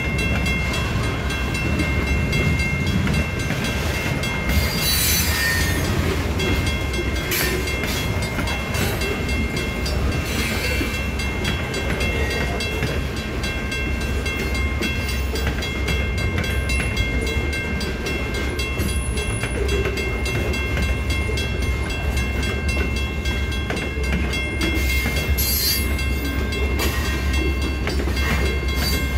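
Loaded covered grain hopper cars of a freight train rolling past at low speed. The wheels clack over the rail joints under a steady low rumble, with several sharp clanks from the cars.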